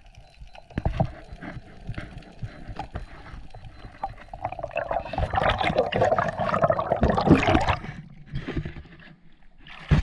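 Water gurgling around the microphone, with many scattered sharp clicks throughout; the gurgling swells louder from about four and a half to eight seconds in.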